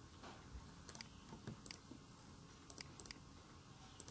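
Faint, scattered clicks of a computer keyboard and mouse, a handful of single and paired clicks, over quiet room tone.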